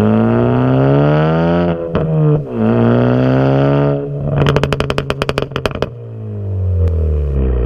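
Turbocharged four-cylinder of a straight-piped, tuned Ford Focus ST pulling hard with rising pitch, a quick drop in pitch at a gear change about two seconds in, then pulling again. When the throttle closes, a rapid string of about a dozen sharp pops and crackles from the exhaust, the tune's deliberate overrun crackle, before the engine note picks up again near the end.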